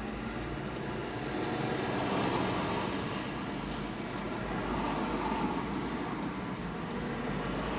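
Road and engine noise of a car being driven, heard from inside the cabin: a steady rumble and hiss that swells slightly about two seconds in.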